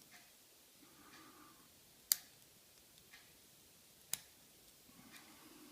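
Sharp metallic clicks from a padlock being single-pin picked, as the pick works the spool pins of a Tifon 50 mm padlock. Two sharp clicks come about two seconds apart, with a few faint ticks between.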